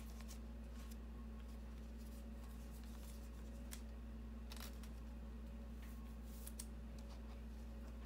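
Faint rustles and light clicks of cardboard trading cards being handled and flipped, a few scattered ticks over several seconds, against a steady low electrical hum.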